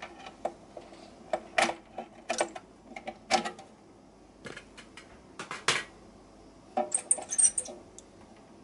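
Clicks and clatters of hard plastic as the vented lid of a clear plastic insect case is unclipped, lifted off and set aside, and a hand reaches into the case. The sharp clicks come in a scattered string, with a quick run of lighter ticks near the end.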